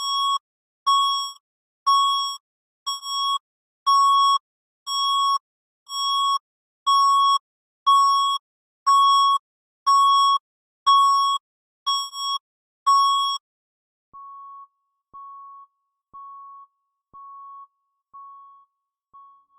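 Synthesized electronic alarm beeping: a harsh, high beep sounding about once a second, each beep about half a second long. About thirteen seconds in it gives way to softer, purer beeps at the same pitch, a little quicker and much quieter.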